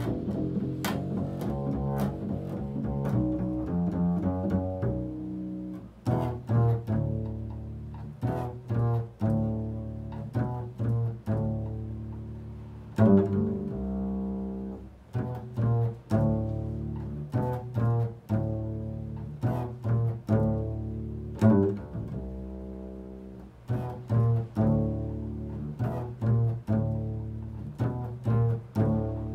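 Solo double bass played pizzicato in a slow, freely improvised line: single plucked notes that ring and die away, closer together in the first few seconds and more spaced out after that.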